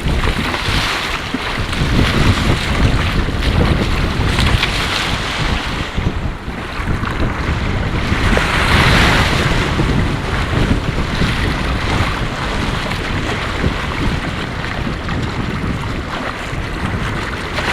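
Sea waves breaking and washing up the beach in swells every few seconds, the biggest about halfway through, with wind buffeting the microphone as a constant low rumble.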